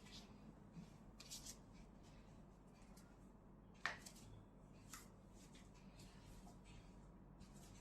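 Near silence with a steady low hum, broken by one sharp click about four seconds in and a few fainter taps and rustles.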